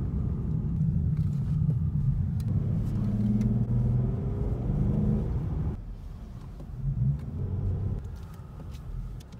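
Ford Mustang's engine and road rumble heard inside the cabin while driving. The engine note pulls clearly for a few seconds, then falls away and quietens about halfway through as the car slows.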